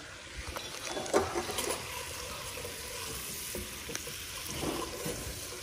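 Garlic and hot-sauce seafood-boil sauce sizzling in a stainless steel pot as it is stirred with a wooden spoon: a steady frying hiss with a few light knocks.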